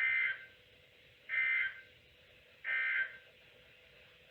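Three short two-tone data bursts, each under half a second and about 1.3 s apart: the EAS/SAME end-of-message code sent at the close of a NOAA Weather Radio alert.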